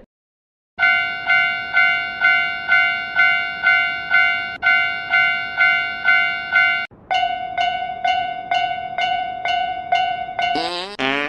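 Japanese railroad crossing warning bell ringing in a steady repeating ding, about two strikes a second, starting about a second in. About seven seconds in it switches to a slightly different bell tone, and near the end a warbling, up-and-down sweeping sound begins.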